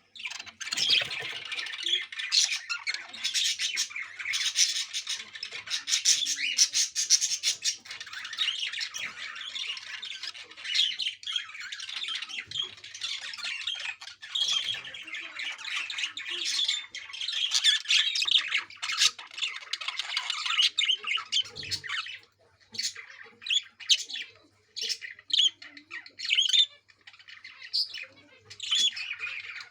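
Budgerigars chattering and squawking almost without pause, the calls thinning into scattered separate chirps and squawks for the last several seconds.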